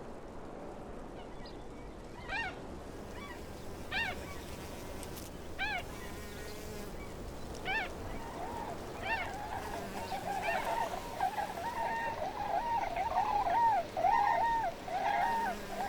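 Outdoor ambience of birds calling over a steady background hiss. Single calls, each a short rise and fall with several stacked pitches, come every second or two. From about halfway in they give way to a rapid, overlapping series of lower calls that grows louder toward the end.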